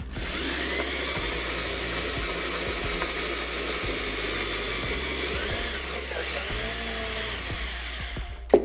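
Electric drill running steadily as a twist bit bores a hole into a wooden board, its pitch sagging briefly and recovering about six seconds in as the bit bites. The drill stops shortly before the end.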